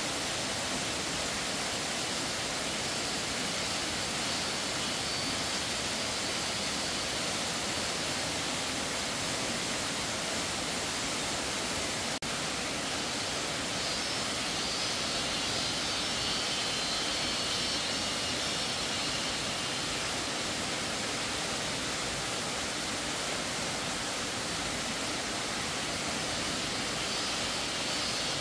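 Steady rushing of flowing stream water, an even hiss that does not change. A single short click about twelve seconds in.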